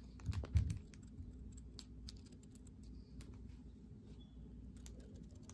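Scissors snipping through satin ribbon: scattered light clicks of the blades, with a low thump about half a second in.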